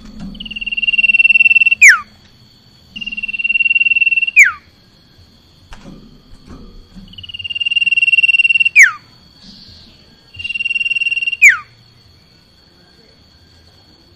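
Common iora (cipoh) singing: four long, level whistles that swell in loudness, each ending in a quick downward-sweeping note.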